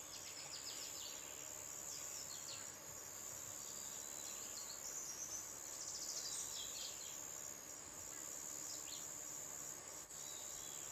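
Faint background ambience: a steady high-pitched insect trill, with a few short, falling chirps scattered through it.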